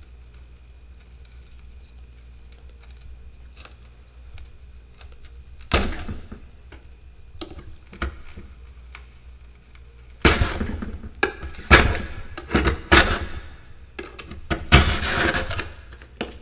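Metal spatula scraping and chipping frost build-up off the inside walls of a freezer. After a quiet start there is a single loud scrape about six seconds in and a smaller one near eight seconds, then a run of loud, crunching scrapes over the last six seconds.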